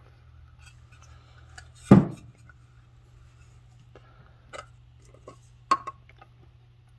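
Handling noise from steel pliers clamped on a screw head in a wooden board: one sharp knock about two seconds in, then a few lighter clicks and taps near the end, over a steady low hum.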